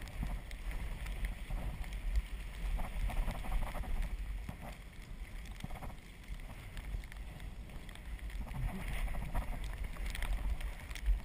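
Wind buffeting the microphone with a heavy rumble, over the wet hiss of an Azub recumbent trike's tyres rolling through slush, with scattered small clicks.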